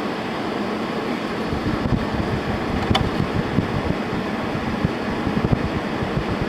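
2017 General Electric 6000 BTU air conditioner running with its compressor on and fan blowing: a steady rush of air over an uneven low rumble, with one short click about three seconds in. The unit is cooling, its coil getting cold.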